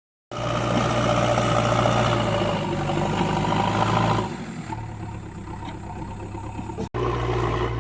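JCB 3DX backhoe loader's diesel engine running steadily. It drops in level about four seconds in and breaks off for an instant near the end before carrying on.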